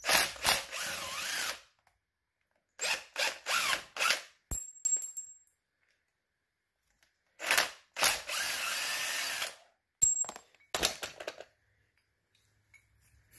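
DeWalt cordless drill-driver with a 5 mm Allen bit, run in several short bursts, the longest about two seconds, as it backs the pins out of an ATV's front brake caliper.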